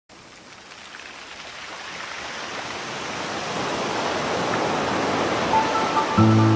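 Song intro: a steady wash of noise swells louder and louder. About a second before the end a few short high notes come in, and just before the end the music starts with a full, sustained chord over a deep bass.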